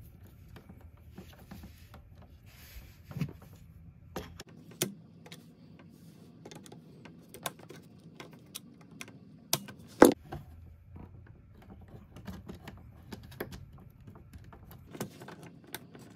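Scattered small clicks and taps of a screwdriver and a plastic two-pole circuit breaker being handled as wires are fastened into the breaker's terminals at an RV breaker panel, with one sharper knock about ten seconds in.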